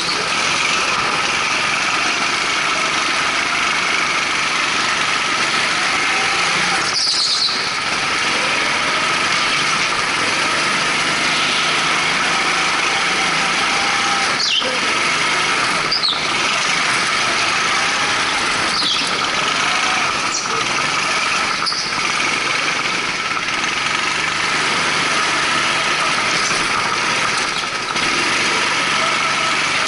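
Go-kart with Honda GX200 single-cylinder four-stroke engines running at speed, a steady drone. About half a dozen short tyre squeals come as it goes through corners.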